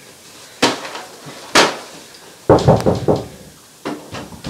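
Sharp knocking: two single knocks about a second apart, then a quick run of several heavier knocks, and one more near the end.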